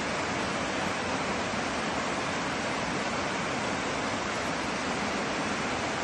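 Small mountain stream cascading over rocks: a steady, even rush of water.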